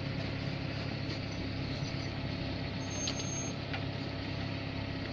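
Steady engine hum of a GAZelle van heard from inside its cab while it idles and crawls in a traffic jam, with a short faint high-pitched tone about three seconds in.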